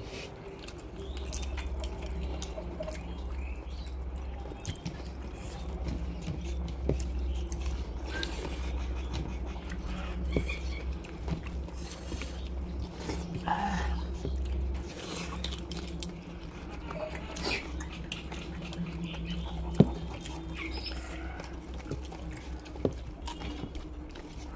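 People eating by hand: chewing and lip-smacking, with many small scattered clicks, over a steady low hum.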